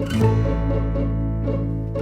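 Background music of plucked string instruments in a country or bluegrass style, with a quick run of plucked notes over a sustained bass.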